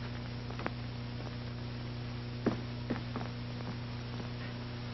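Steady low hum and hiss of an old optical film soundtrack, with a few faint clicks.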